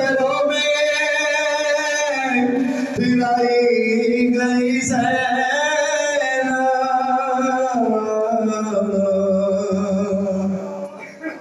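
A man singing a noha, a Shia mourning lament, unaccompanied into a microphone, in long held notes that slide and waver between phrases. The voice drops away briefly near the end.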